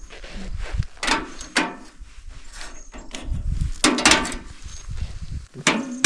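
Steel clanking: about five separate knocks, several with a short metallic ring and some scraping, over a low rumble.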